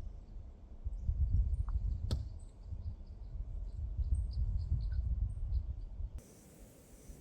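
Gusty wind rumbling on the microphone, with faint short high chirps scattered through it and one sharp click about two seconds in. Near the end it cuts to a quieter, hissier outdoor background with a few high chirps.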